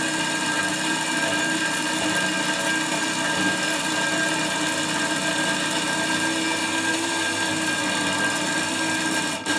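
Hafco BS-5V portable metal-cutting bandsaw running steadily under load, its blade sawing through 10 mm thick mild steel plate with an even, steady whine. The sound drops out briefly near the end.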